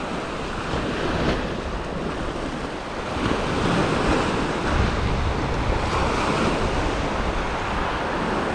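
Small waves breaking and washing up the sand at the shoreline, with wind buffeting the microphone; the wash swells louder in surges a few seconds in.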